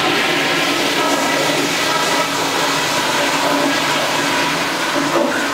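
Toilet flushing: a steady rush of water that starts suddenly just before and runs on, easing slightly near the end, with a faint whine in it.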